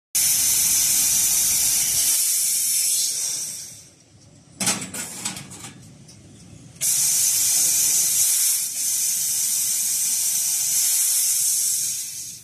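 Tube laser cutter's gas jet hissing at the cutting head as it cuts a metal tube, dying away after about three and a half seconds. A short clatter of knocks follows as the machine moves the tube, then the hiss starts again abruptly at about seven seconds and stops near the end.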